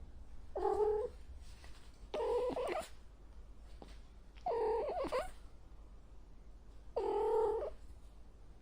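Domestic cat meowing four times, each call under a second long, about every two and a half seconds.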